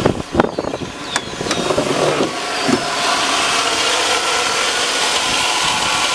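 The 2002 Chevy Avalanche's 5.3-litre Vortec V8 idling, with a few knocks in the first two seconds. The engine noise then grows louder and steady, carrying a whir that the owner takes for a failing alternator bearing.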